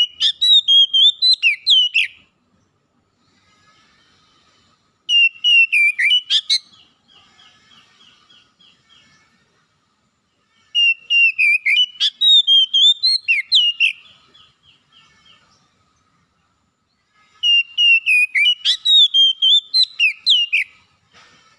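Oriental magpie-robin singing: loud phrases of varied whistled notes, each lasting two or three seconds and repeated about every six seconds, four in all, with faint chattering between them.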